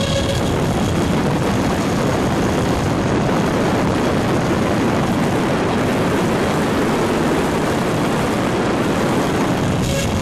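Twin electric ducted fans of an E-flite F-15 model jet running flat out on a static thrust stand, giving a steady, loud rush of air. No clear fan whine stands out above the rush.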